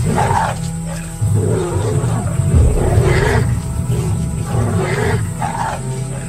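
Lions growling and snarling in repeated short bursts while fighting hyenas, over background music.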